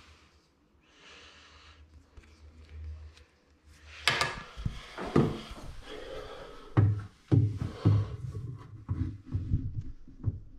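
Faint rustling, then a sharp knock about four seconds in followed by a run of irregular bumps, clunks and rubbing against wood, as of handling inside a bathroom vanity cabinet.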